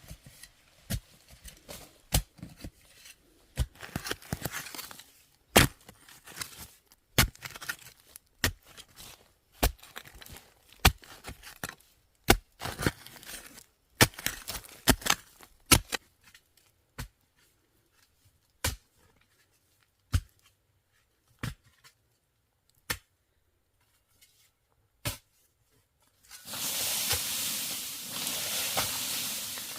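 Knife strikes on a cutting board, quick and irregular with rustling at first, then single chops about once a second. Near the end, food starts sizzling steadily in hot oil.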